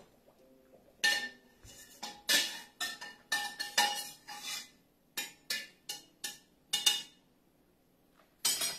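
Stainless steel pot and metal colander clanking against each other and the sink while boiled macaroni is drained, a run of about fifteen sharp ringing clanks over some six seconds before it goes quiet.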